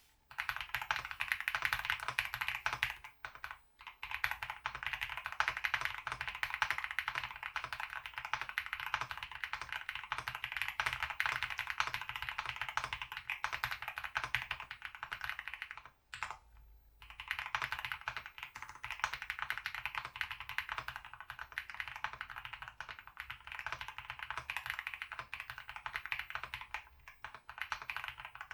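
Steady, fast typing on a mechanical keyboard with Akko Cream Yellow V3 linear switches lubed with Krytox 205g0, a dense run of keystroke clicks that stops for about a second some sixteen seconds in, then carries on.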